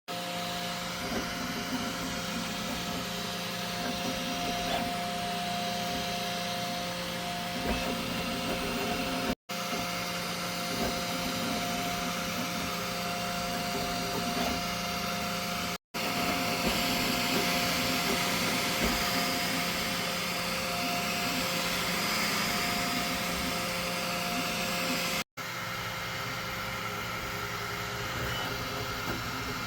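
Flashforge Adventurer 5M 3D printer running mid-print: a steady fan whir with a constant motor hum and whine. The sound breaks off for an instant three times.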